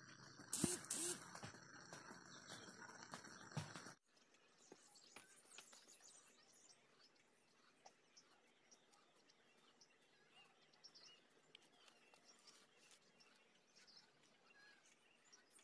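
Quiet outdoor ambience. For the first four seconds there is steady insect chirring with a brief louder call about a second in. It then drops abruptly to a fainter background with scattered faint chirps and ticks.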